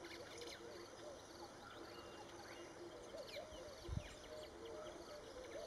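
Faint birds chirping and calling in a mix of repeated notes, over a soft outdoor hiss. A single low thump about four seconds in.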